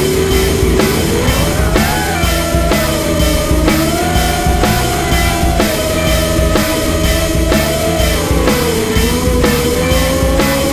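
Rock music with a steady drum beat and guitar. A sustained tone in it slides up about a second in, holds, and eases back down near the end.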